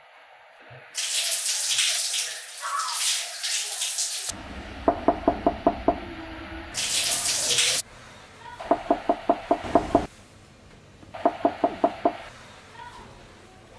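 Running shower water hissing, then a fist knocking on a wooden door in three bursts of five to seven quick knocks. The water briefly runs again between the first two bursts.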